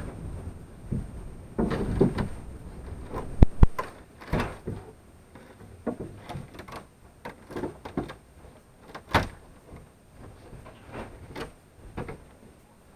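Irregular knocks, scrapes and rustles from a person working by hand under a house floor, with two sharp cracks close together about three and a half seconds in.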